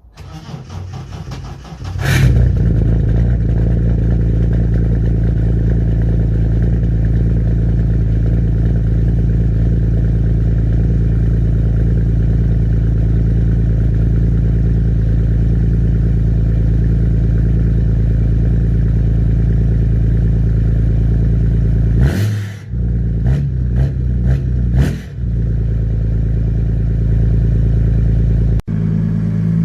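BMW 330d's M57 straight-six diesel with a big turbo and a straight-through exhaust, revved up and held against a hardcut rev limiter in one loud, steady note. Near the start there is a sharp bang. About two-thirds of the way in, the throttle is lifted and reapplied several times in quick succession before the engine is held at the limiter again.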